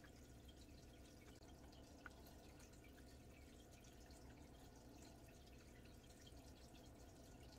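Near silence: room tone with a faint steady low hum and a few faint ticks, including one small click about two seconds in.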